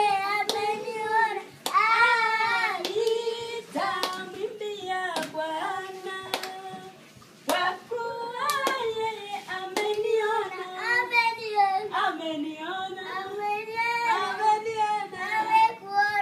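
A small boy and a woman singing a church song together, with sharp hand claps every second or two and a short lull partway through.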